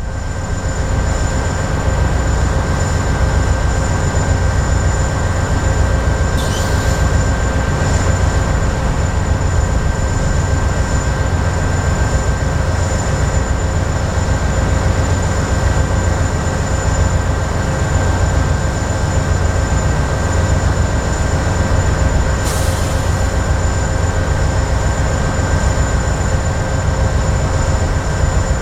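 A freshly rebuilt GE AC44C6M diesel locomotive running steadily under load as it leads a loaded coal train out of the yard, a heavy continuous low rumble. Two brief high hisses cut in, about six seconds in and again near twenty-two seconds.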